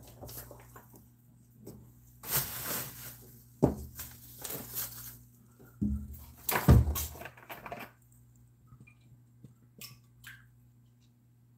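Rustling and a few sharp knocks and clatters as items are handled and taken out of a kitchen cabinet, the loudest knock about two-thirds of the way through. A faint steady low hum lies underneath.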